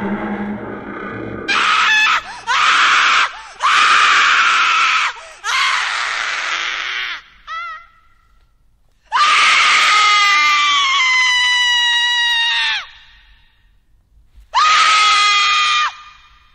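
High-pitched human screams: a string of short screams, then one long scream lasting nearly four seconds that sinks slightly in pitch, then one more shorter scream near the end.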